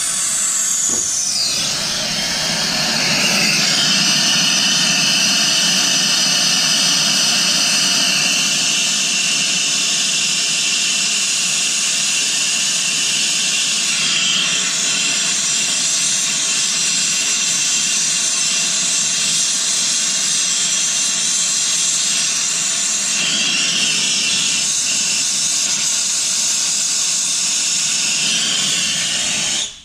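Turbo torch flame burning steadily with a loud hiss while heating a copper pipe joint for silver brazing. A faint whistle falls in pitch over the first few seconds, and the flame cuts off suddenly near the end.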